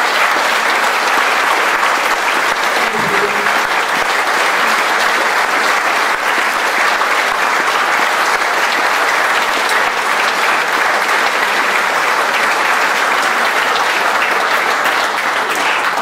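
Audience applauding: dense, steady clapping from a crowd that runs on without a break.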